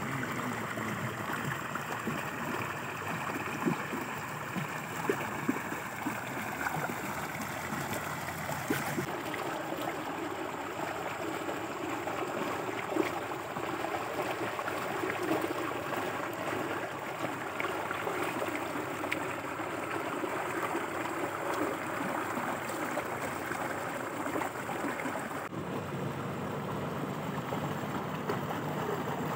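Steady rushing water noise with faint scattered ticks.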